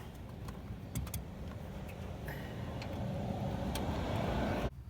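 Light metal clicks of a spark-plug socket and extension as a new spark plug is fitted into the engine, over a steady low rumble that swells toward the end and cuts off suddenly.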